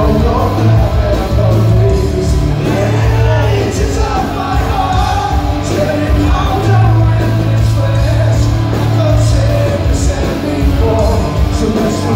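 Live rock band playing loud, with electric guitars, drums and a heavy, steady bass under a singer singing and shouting into the microphone.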